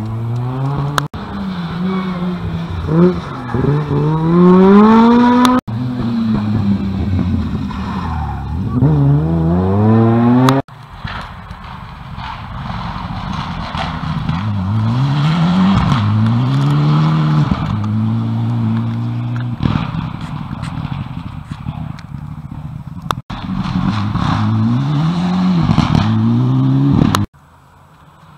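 Rally cars' engines revving hard and changing gear as they pass, the pitch repeatedly climbing and dropping, heard in several short edited clips that cut off abruptly.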